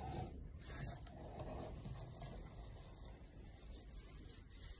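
Faint rubbing and rustling of a paper towel in the hands as a paintbrush is wiped clean.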